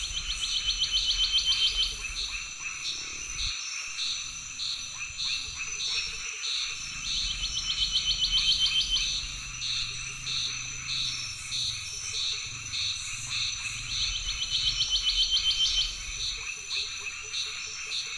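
Night-style chorus of frogs and insects: a rapid pulsed trill lasting about two seconds that comes back three times, with shorter regular calls in between, over a steady high-pitched insect buzz.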